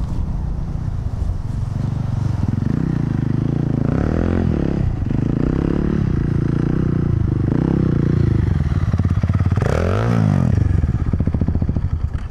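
Single-cylinder dual-sport motorcycle engine being ridden through sand, its revs rising and falling repeatedly, loudest about ten seconds in.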